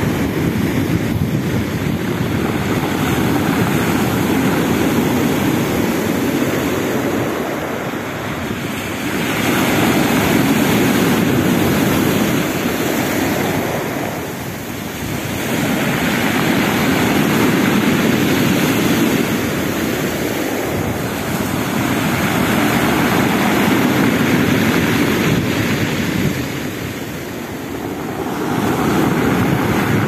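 Black Sea surf breaking and washing up a pebble beach, the rush swelling and easing with each wave about every six seconds.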